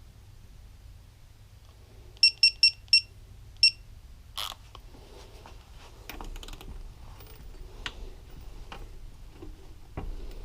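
Digital torque wrench beeping: four short high-pitched beeps in quick succession and one more a moment later, signalling that the 37 ft-lb set torque on the balancer drive gear nut is reached. Clicks and knocks of tools and metal engine parts being handled follow.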